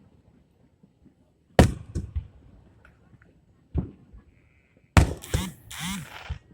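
Fireworks shells bursting: a sharp bang about a second and a half in, another near four seconds, and a third about five seconds in, followed by roughly a second of crackle and hiss.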